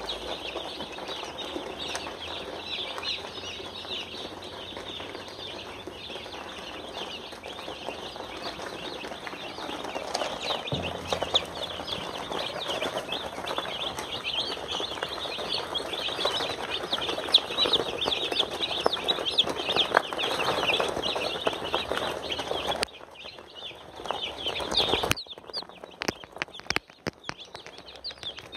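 A brood of newly hatched chicks peeping nonstop, many short high calls overlapping into a dense chorus.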